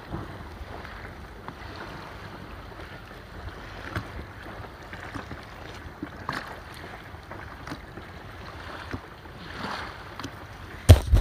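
Lake water lapping and splashing against a stand-up paddleboard, with light wind and a few faint taps. Near the end, a burst of loud low thumps.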